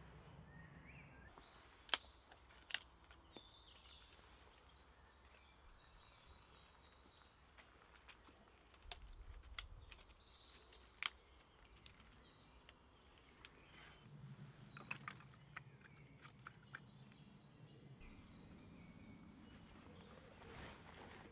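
Faint woodland birdsong: repeated high chirping phrases. It is broken by a few sharp wooden clicks and knocks as split dry kindling is handled and laid in a fire pit.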